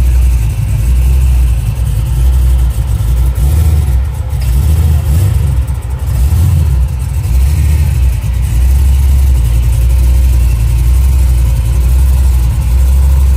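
A 1973 Chevrolet convertible driving, its engine and road noise making a loud, steady deep drone that swells and eases slightly as the throttle changes.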